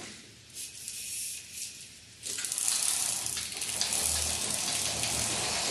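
A roller blind rolling up: a steady rushing noise that starts about two seconds in and stops near the end.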